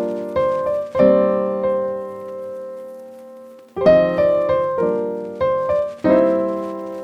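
Background piano music: a phrase of struck notes, a chord held and fading for a few seconds, then the melody picks up again.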